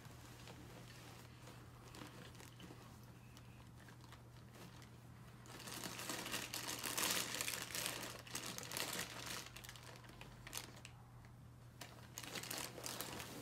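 Crinkling, rustling noise, loudest for a few seconds about halfway through, over a low steady hum.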